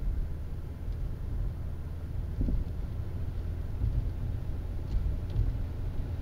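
Car driving at road speed, heard from inside the cabin through a dashcam: a steady low rumble of engine and tyres, with a light thump about two and a half seconds in.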